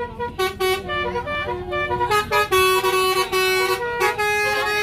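Tour bus's musical air horn (Basuri V3) playing a tune: a string of short held horn notes stepping up and down in pitch.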